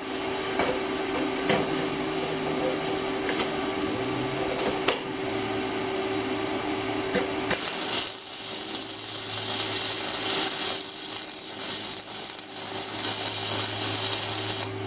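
Shielded metal arc (stick) welding with an E6013 rod on mild steel: the arc makes a continuous sizzling hiss dotted with sharp crackles and pops. A steady hum runs underneath.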